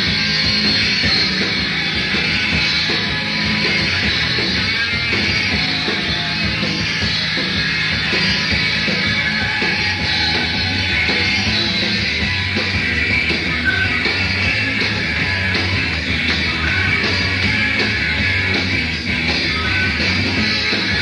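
Rock band playing a song live: a dense, unbroken band sound throughout.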